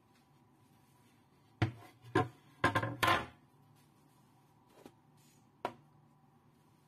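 Aluminium baking tin handled and set down on a glass cooktop: a quick run of knocks and clatters in the first half, then two lighter knocks. A faint steady high tone hums underneath.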